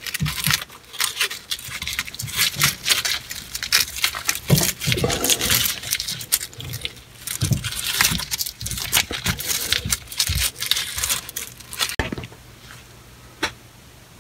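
Stainless steel worm-drive hose clamps handled and slid into place around a pipe patch by gloved hands: many quick clicks, rattles and scrapes of the metal bands, stopping about twelve seconds in.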